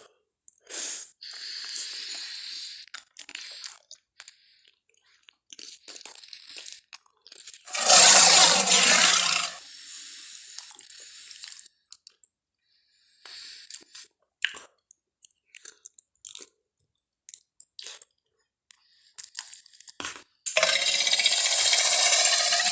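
Tarbosaurus (tyrannosaur) sound effects: a loud roar lasting about a second and a half, about eight seconds in, and another beginning near the end, with scattered crunching and chewing noises of biting and eating between them.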